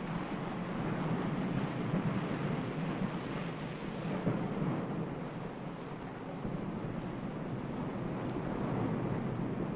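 A steady, rushing, rumbling noise with no distinct strikes or tones, swelling slightly now and then.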